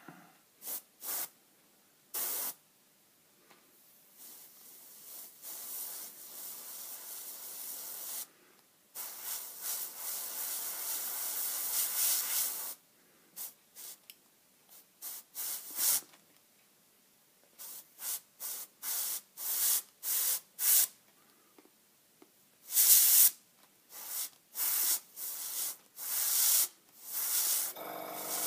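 Iwata Eclipse airbrush spraying paint in hissing bursts as the trigger is pressed and released. There are a few short puffs at first, then a longer spray of several seconds with a brief break near the middle, then a quick run of short puffs toward the end.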